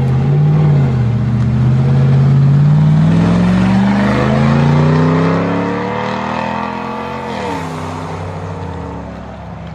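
Truck engine accelerating, its pitch climbing steadily for about six seconds, then dropping suddenly a little over seven seconds in and running on lower and somewhat quieter.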